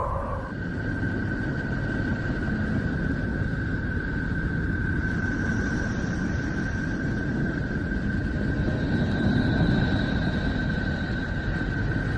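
Space radio emissions converted into sound: a steady high tone held over a low, noisy rumble, with fainter, higher tones joining about five seconds in and again about nine seconds in.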